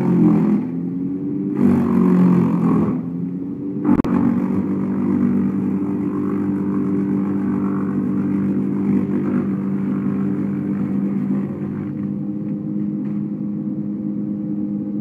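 Bandit 990 brush chipper running, its engine note sagging and recovering twice in the first few seconds as it takes branches. There is a sharp crack about four seconds in, then the engine runs on steadily.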